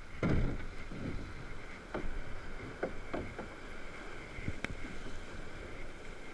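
Rushing river water around a drift boat running a riffle of whitewater. Irregular low knocks and thumps come through it, with one sharp click about four and a half seconds in.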